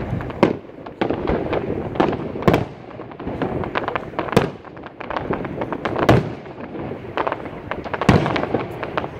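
Aerial firework shells bursting in an irregular barrage of loud bangs, several seconds apart, with many smaller cracks and pops in between.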